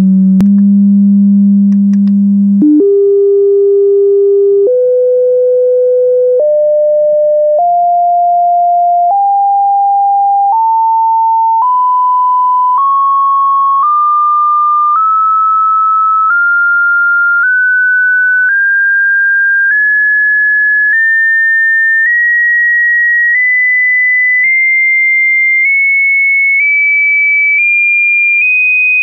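Hearing-test tone: a single pure tone held steady, then stepping up in pitch about once every second or so, rising from a low hum-like pitch to a high whistle-like pitch.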